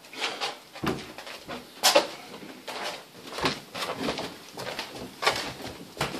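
Footsteps of people climbing a staircase: a run of uneven thuds, about one or two a second.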